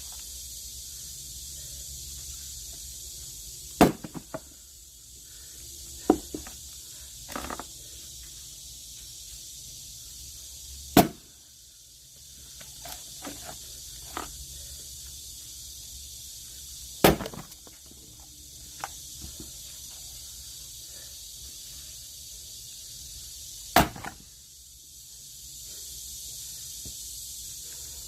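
Logs being split by hand: four loud, sharp strikes about six to seven seconds apart, with lighter knocks of wood between them.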